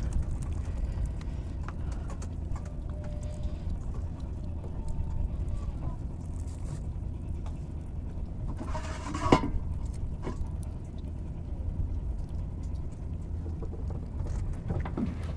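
A boat's engine running with a steady low drone. A short sharp knock comes about nine seconds in.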